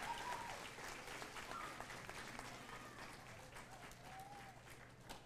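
Audience applauding, the clapping steadily dying down.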